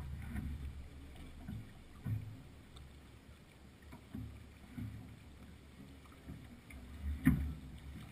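Sailing yacht under way in light wind: a steady low rumble of wind and water on the deck-mounted camera, with scattered light knocks and one sharper knock a little after seven seconds in.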